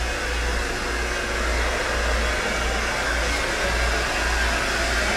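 Hair dryer running steadily in a salon during a haircut.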